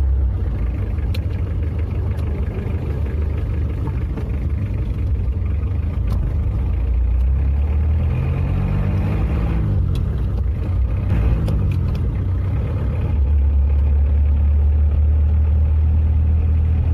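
Car engine heard from inside the cabin while driving through gear changes. The driver drops from third to second, and the engine note rises and falls through the middle. After a shift up to fourth gear, the engine settles to a steady cruising hum near the end.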